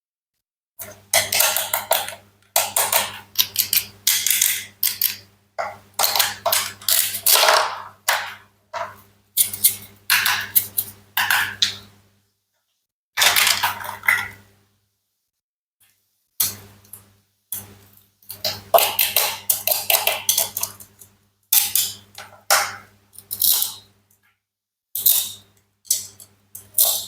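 Toy fruits and vegetables of plastic and wood being cut with a toy knife: a run of short, crunchy slicing and chopping sounds, each cut followed by a dead-silent gap.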